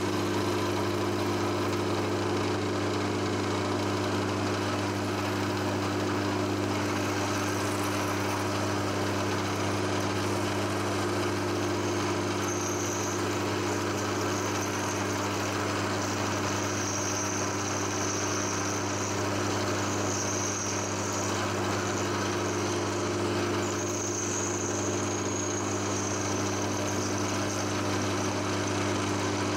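Milling machine running steadily, its cutter taking a full-depth cleanup pass along a slot in a steel bar under coolant, with a steady motor hum. A faint high whine comes and goes in the second half.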